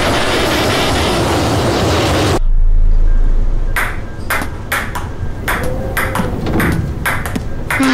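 Wind blowing across open snow. This cuts off suddenly into a short low rumble, followed by a table-tennis rally: a celluloid ping-pong ball clicking off a table and paddles in quick, irregular hits about a third of a second apart.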